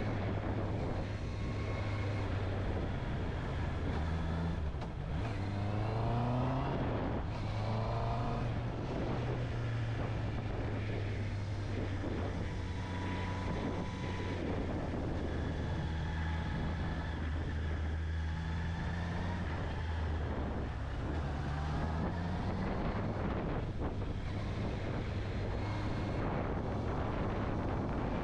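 Honda CB650R's inline-four engine running while riding, with wind rush over the microphone; the revs climb in several quick rising sweeps about five to eight seconds in, then settle to a steady cruise.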